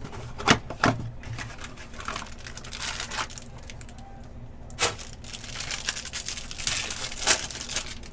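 A 2020 Panini Select football hanger box being torn open and its cellophane-wrapped pack of cards pulled out and unwrapped: cardboard tearing and plastic wrapper crinkling, with a few sharp snaps, two close together near the start, one about five seconds in and one near the end.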